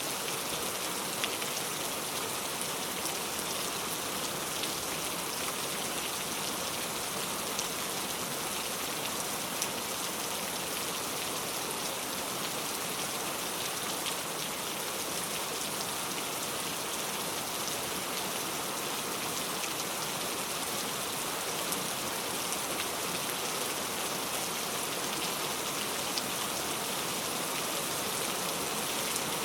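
Heavy rain falling on a road, a steady dense hiss with scattered sharper drop hits and a few slightly louder splats, no thunder.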